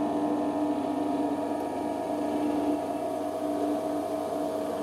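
Biltema BD5512 bench drill running, its motor and spindle giving a steady hum of several constant tones. It runs normally, with no clicking.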